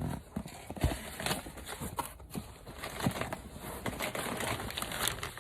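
A cardboard shipping box being handled and opened: irregular knocks and taps on the cardboard with scraping and rustling.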